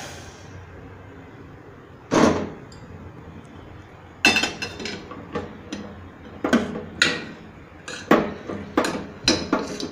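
Long steel spoon scraping and knocking against a stainless steel pot while stirring hot milk into coarse rice paste to break up its lumps. There is a single stroke about two seconds in, then an irregular run of quick scrapes and clinks from about four seconds on.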